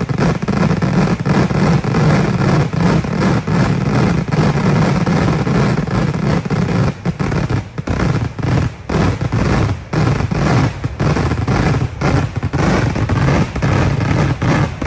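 Kerala church-feast fireworks barrage: firecrackers going off in a rapid, unbroken stream so dense that the bangs merge into a continuous loud rumble. From about halfway through, sharper separate bangs stand out from the stream.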